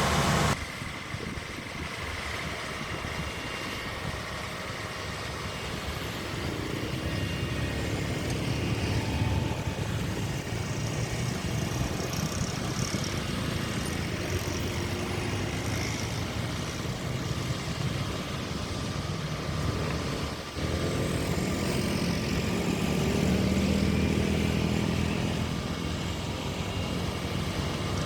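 Heavy road-construction machinery running, a road roller's diesel engine among them, with a steady deep engine sound. The sound changes abruptly shortly after the start and again about two-thirds of the way through.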